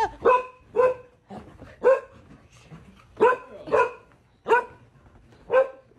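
Golden retriever barking, about eight short, loud barks at uneven intervals.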